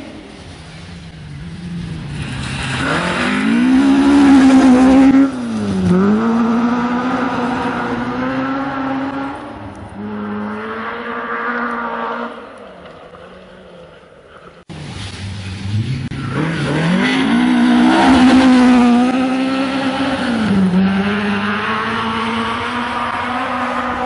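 Rally car engine at full throttle on a gravel stage, its note climbing and holding high, then dipping sharply and climbing again. It is loudest about four seconds in. The sound cuts off abruptly just past halfway, then a similar hard-driven run begins.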